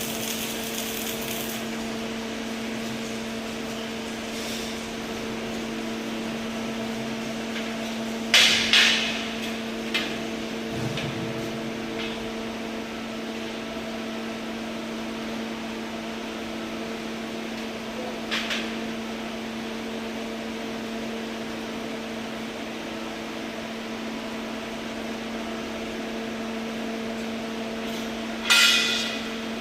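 Steady machine hum with a few sharp metallic knocks: a loud one about eight seconds in, smaller ones around ten and eighteen seconds, and another loud one near the end.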